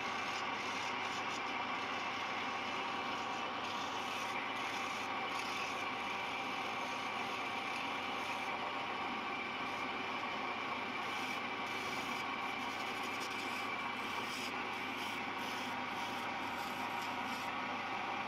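Homemade wood lathe running with a steady whine while a hand tool scrapes against the spinning wooden file handle. Irregular scraping strokes come and go over the second half.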